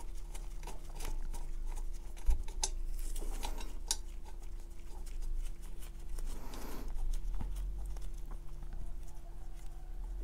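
Gloved hands handling brass hose fittings and the valve on a refrigerant recovery tank: scattered light clicks and rustles, with one dull thump about two seconds in. A faint steady hum runs underneath.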